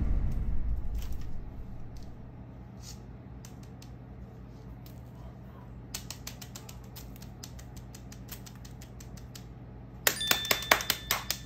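Light, quick clicking and rattling of small plastic fidget toys being handled: sparse at first, then thick and fast from about six seconds in, and louder near the end with a couple of brief ringing tones. A low sound effect dies away at the start.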